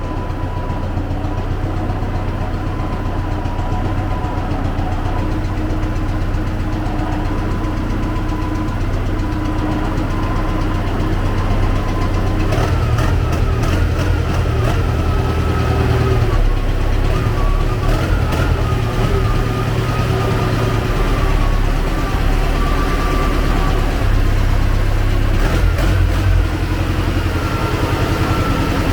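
T-40AM tractor's air-cooled diesel engine running steadily as the tractor drives, its note growing heavier and louder about twelve seconds in, with a few short clicks over it.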